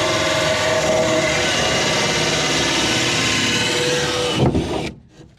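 Electric drill running steadily under load while boring through a boat's locker wall, then stopping abruptly near the end.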